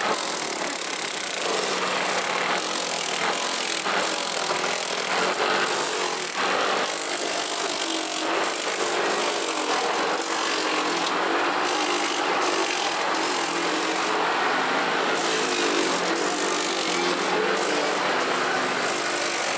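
Motor-driven cassava grater running steadily as peeled cassava roots are pressed against its grating wheel, a continuous grinding noise with a thin high whine over it.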